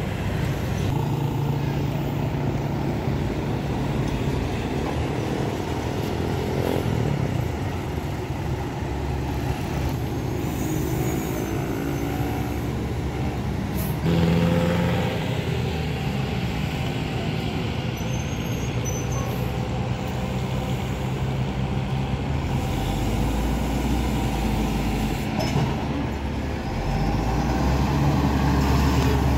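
Heavy road traffic of buses and trucks with engines running steadily. A brief sharp noise comes about fourteen seconds in, and a deeper engine rumble builds near the end as a heavy vehicle draws close.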